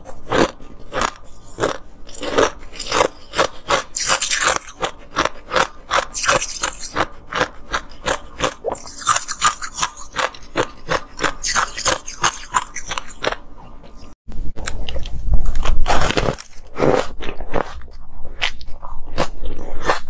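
Ice being crunched and chewed close to the microphone: a quick run of sharp crunches, several a second. About fourteen seconds in the sound breaks off for an instant, then louder crunching with a deep thump follows.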